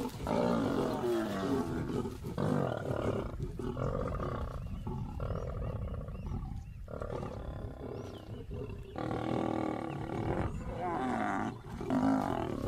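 Lions growling and snarling at a kill in a series of rough growls, each lasting a second or two. This is a squabble over the carcass as the males drive a feeding lioness off it.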